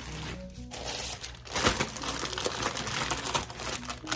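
Packaging crinkling and rustling as hands rummage through a shipping box, in a dense, irregular crackle.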